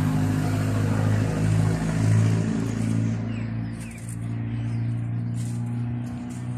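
An engine running steadily with a low, even hum, a little quieter in the second half. Light rustling comes in over it in the second half.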